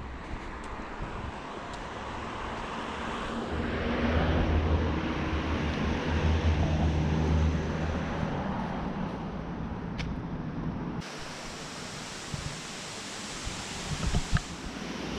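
A motor vehicle going past with a low engine hum that swells and fades, over the steady rush of wind on the microphone.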